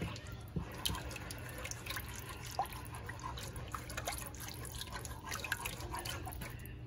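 A whisk stirring a thin cheese sauce of milk, egg and melting shredded cheese in a saucepan: liquid swishing and dripping, with irregular light clicks as the whisk works over the bottom of the pot so the sauce does not scorch.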